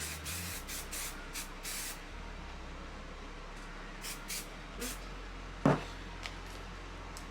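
Aerosol hairspray (Bed Head) sprayed onto hair in several short hissing bursts, about five in quick succession at the start and a few more around four seconds in. A single sharp knock, the loudest sound, comes a little past halfway.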